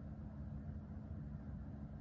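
Cavalier King Charles Spaniel snoring in its sleep: a steady, low fluttering rumble.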